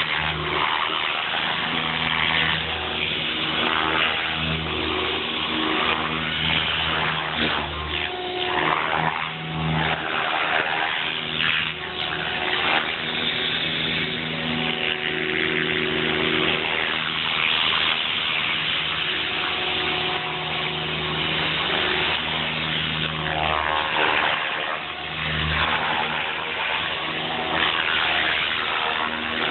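Radio-controlled model helicopter flying aerobatics overhead: a rotor and motor whine that swells, dips and shifts in pitch as it manoeuvres.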